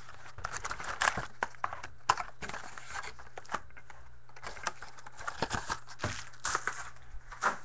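Wrapping on a box of trading cards being crinkled and torn open, with irregular clicks and scrapes as cards and packaging are handled, over a steady low hum.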